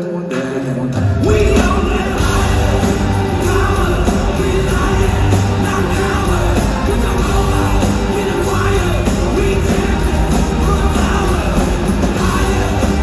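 Live rock band playing with singing, recorded from the arena stands on a phone. About a second in, the full band with bass and drums comes in under the singing and the music gets louder.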